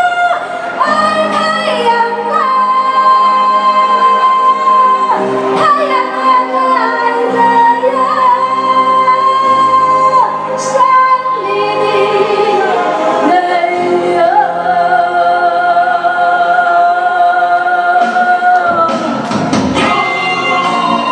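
Music with a female singer holding long notes that slide in pitch, played over the hall's loudspeakers for dancing.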